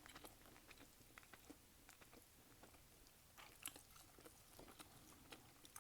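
Faint chewing close to the microphone: soft, scattered mouth clicks and smacks as food is eaten, a little louder about three and a half seconds in.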